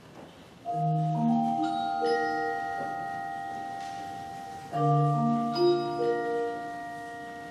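Concert wind band playing. After a near-silent first moment, a held chord enters about a second in and slowly fades, and a second chord comes in about five seconds in.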